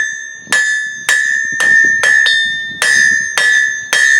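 Hand hammer striking hot mild steel on the round edge of an anvil, about two blows a second, each blow followed by a clear ringing of the anvil. This is fullering, drawing the bar out to a fast taper.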